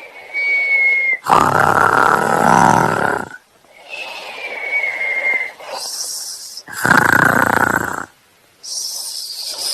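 A dog yawning: twice a thin, high squeaky whine that falls a little in pitch runs into a loud, noisy yawning groan, with soft breathy exhalations near the end.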